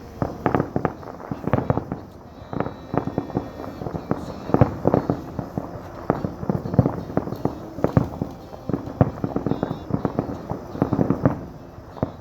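Fireworks going off: a rapid, irregular run of sharp pops and bangs, several a second, coming in clusters.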